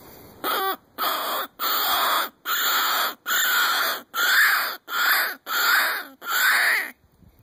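Knight and Hale 'Shaft' predator call blown in a run of nine harsh cries, each about half a second long, to lure a fox. The first cry falls in pitch.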